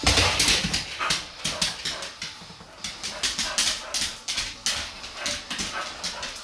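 Boxer dog scrambling across a hard kitchen floor after a laser dot, claws clicking and skidding in quick irregular bursts, densest in the first second.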